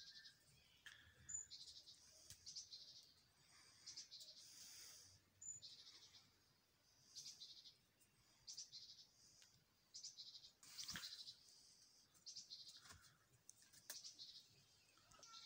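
Faint high-pitched insect chirping in short pulsed bursts, about one a second. A brief louder knock-like noise comes about eleven seconds in.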